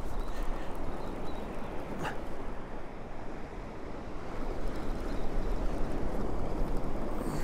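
Surf washing onto the beach, swelling a little about five seconds in, with wind on the microphone.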